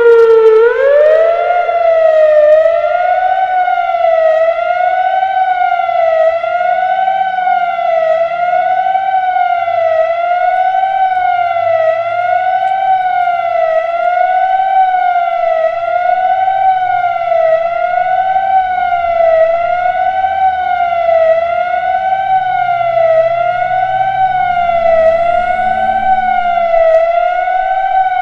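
Emergency warning siren that winds up in pitch over the first second or so, then wavers steadily up and down, about one rise and fall every 1.3 seconds.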